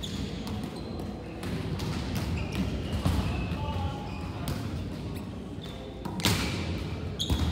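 Volleyballs being hit and bouncing on a hard gym floor in a large hall, a series of sharp smacks with the loudest about six seconds in, over the steady noise of distant voices.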